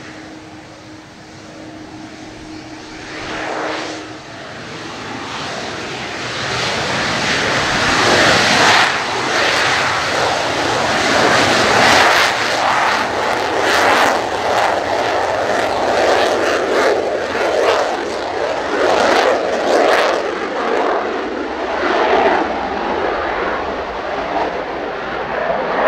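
Twin J79 turbojets of an F-4EJ Kai Phantom II on its takeoff run: a steady whine at first, then the jet noise builds over a few seconds to a loud, crackling, full-power sound that holds as the jet lifts off.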